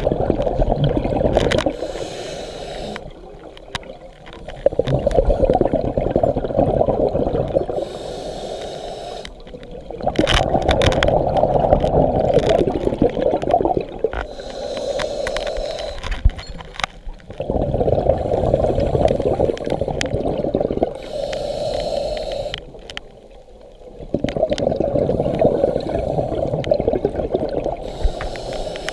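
Scuba diver breathing through a regulator underwater: a short hiss on each inhale, then a long bubbling rush of exhaled air through the exhaust valve, about four breaths at a slow, even pace.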